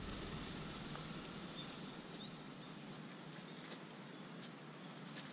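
Quiet outdoor ambience: a faint steady hiss with a few soft ticks in the second half.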